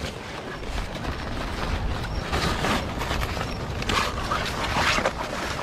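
Rustling of a cloth sack being handled as a crab is put into it, with scattered crinkling and a low rumble underneath.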